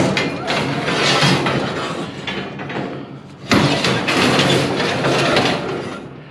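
Cordless drill running in two long bursts, working at the screws of a wooden shipping crate, with a short stop about three and a half seconds in.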